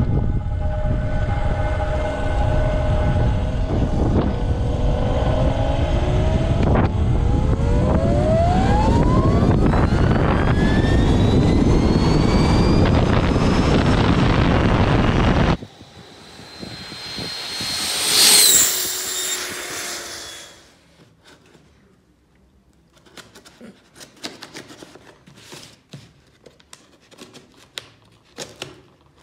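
Electric go-kart with two Castle 2028 800kv brushless motors accelerating hard: a whine of several pitches climbing together over loud rushing noise, cut off abruptly about halfway. Then a shorter whine swells and fades, followed by quiet clicks and taps.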